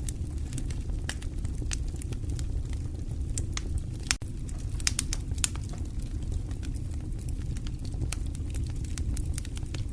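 Fire burning in a fireplace: a steady low rumble with irregular sharp crackles and pops, a handful of louder pops clustered about halfway through.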